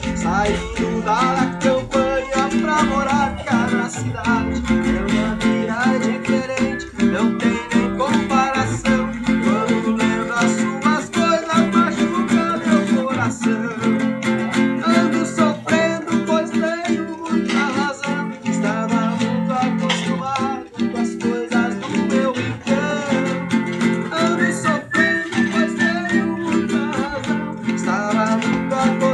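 Acoustic guitar music playing continuously at an even level.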